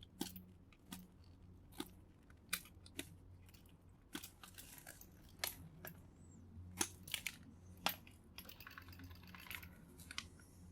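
Faint, scattered small clicks and taps of hand tools and parts being handled as a circuit board is stripped, with a brief scratchy rustle near the end.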